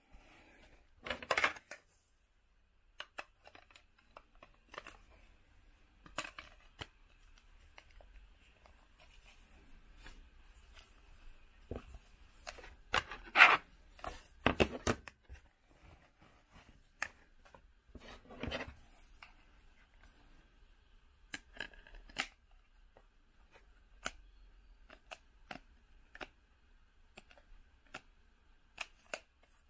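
Handling noise from a phone, its plastic case and a glass screen protector: scattered clicks, taps and rustling, with the loudest cluster of knocks and rubbing about halfway through.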